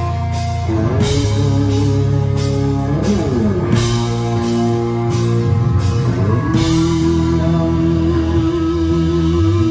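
Live rock band playing an instrumental passage on semi-hollow electric guitar, keyboard, bass and drum kit, with sustained notes that slide in pitch twice over steady cymbal and drum hits.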